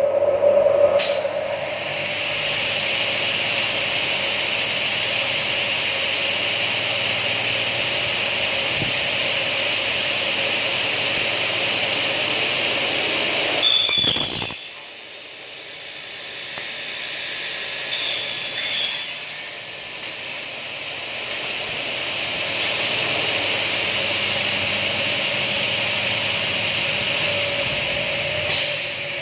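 Double-head aluminium cutting saw running, its motors and blades giving a loud steady high whine. About halfway through there is a sharp knock and the sound drops away, then builds back up and runs steady again.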